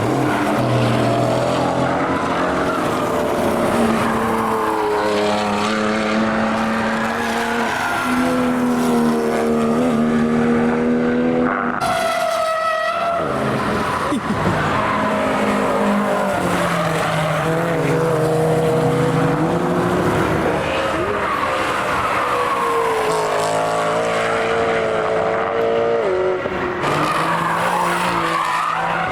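Cars driven hard through a corner one after another, their engines revving up and down in pitch as they pass, with tyres squealing and skidding on the wet track. The engine sound drops briefly about twelve seconds in, then the next cars come through.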